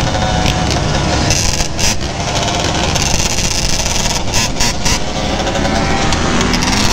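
Sport ATV engine running while riding, mixed with the engines of other quads and dirt bikes close by.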